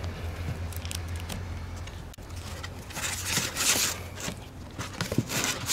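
Cat gnawing a dried chew treat on a fleece blanket, with crackling, scraping and rustling close to the microphone, loudest from about three to four and a half seconds in, over a low steady hum.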